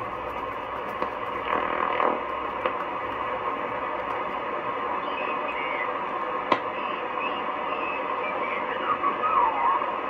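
Shortwave amateur-radio receiver audio on the 20-metre band while being tuned: steady band hiss with faint whistling tones sliding past as the tuning moves through signals. A single sharp click comes about six and a half seconds in.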